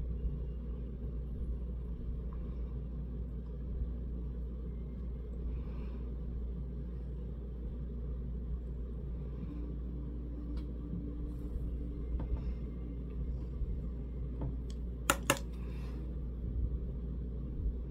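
A steady low rumble, with two sharp clicks close together about fifteen seconds in.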